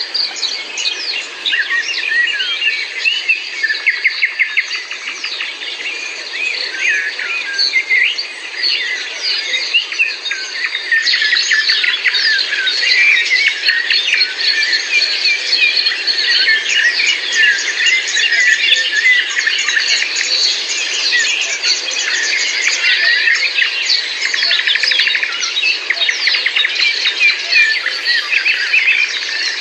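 A dense chorus of many songbirds chirping and singing at once, with calls overlapping continuously. The chorus gets busier and louder about a third of the way in.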